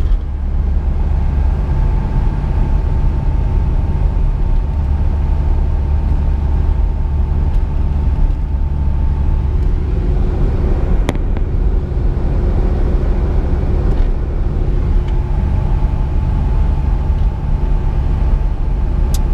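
Inside the cabin of a 1998 VW Jetta TDI cruising at about 2,000 rpm: steady low engine and road rumble from its 1.9-litre four-cylinder turbodiesel, with a single click about eleven seconds in.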